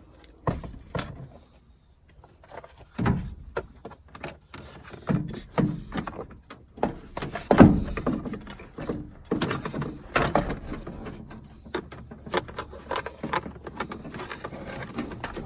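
Plastic interior door trim panel of a Ford F150 being handled and fitted back onto the door: irregular clicks, taps and knocks, the loudest knock about seven and a half seconds in.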